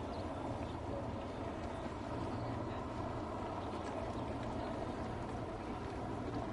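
Steady outdoor ambience of distant engines: an even low hum and rumble, with no single event standing out.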